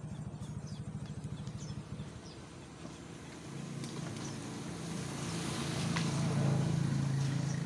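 A small engine running: a fast, even putter at first, then after a short dip about two seconds in, a steadier drone that grows louder toward the end.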